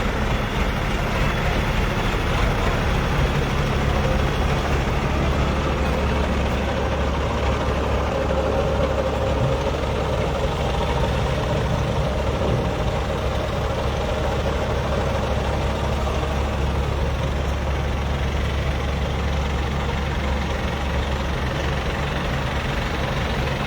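Heavy diesel engine idling steadily, a constant low drone with no change in speed.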